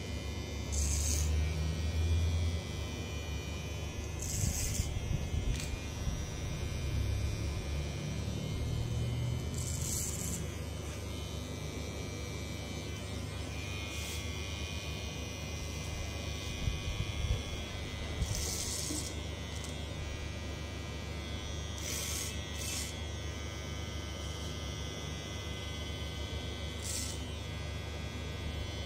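Cordless electric hair clipper buzzing steadily as it cuts short grey hair over a comb at the back of the head, with brief high hisses every few seconds.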